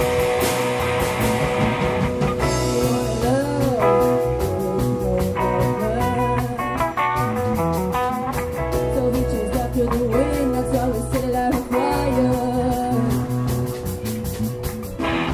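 Live rock band: several female voices singing over drum kit and electric guitar. The sound changes abruptly just before the end.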